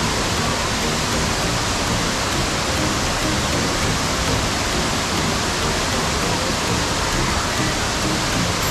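Steady rush of a waterfall heard close up: an even, unbroken noise of falling water.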